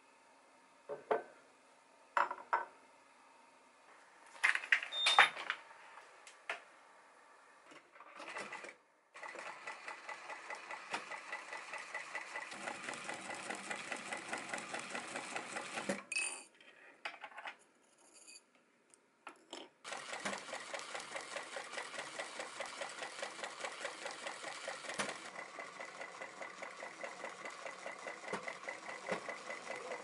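Sewing machine stitching in a fast, even rhythm, in two runs of several seconds with a short stop between them. Before the stitching starts there are a few sharp knocks and clicks as things are handled on the table.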